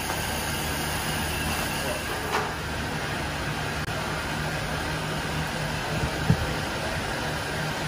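Steady hum and rush of running machinery, with a single sharp knock about six seconds in and a faint click a little after two seconds.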